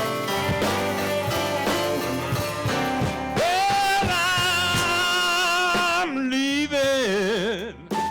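Live blues band of electric guitar, bass, drums and keyboards playing a slow blues passage between sung lines, with steady chords and drum strokes. From about three seconds in, a lead line holds long notes with a wide vibrato.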